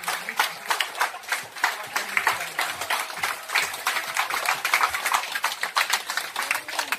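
A crowd clapping continuously in a large room, with some voices calling out among the claps.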